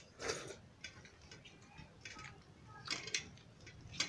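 Two people eating rice and curry by hand from steel plates: irregular chewing, smacking and sharp little clicks, the loudest clicks about three seconds in and near the end.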